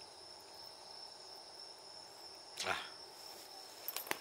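Crickets trilling steadily at one high pitch, with a brief voiced 'ah' about two and a half seconds in and a few sharp clicks near the end.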